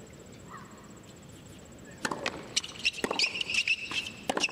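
Tennis point on a hard court: after a quiet stretch of arena hush, sharp racquet-on-ball hits and ball bounces start about two seconds in, with a high squeak alongside.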